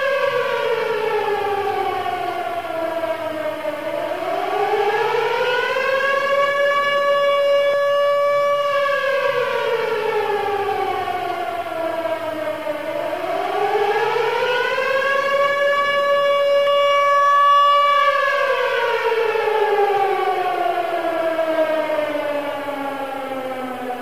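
Civil defence siren sounding the rising-and-falling wail of the German warning signal, the tone that means danger. Its pitch slides down, climbs back up and holds high for a few seconds, in cycles of roughly nine seconds, with a fall under way again near the end.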